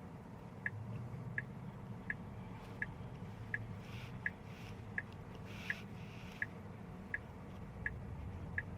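Tesla turn-signal indicator ticking steadily inside the cabin, a short high click about every three-quarters of a second, over a low cabin hum.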